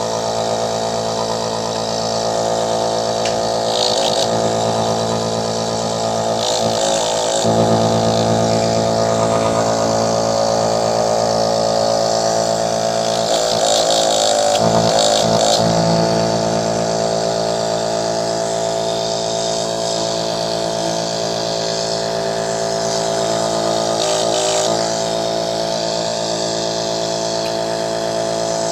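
A repaired nebulizer's compressor running steadily with a continuous buzzing hum, broken by a few brief disturbances.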